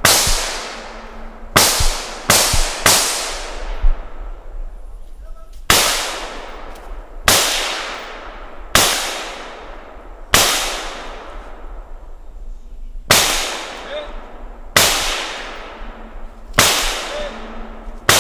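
Semi-automatic FN SCAR rifle in .223 firing about a dozen single shots, mostly a second and a half or so apart with a quicker group of three near the start. Each shot rings out in a long echo through the woods.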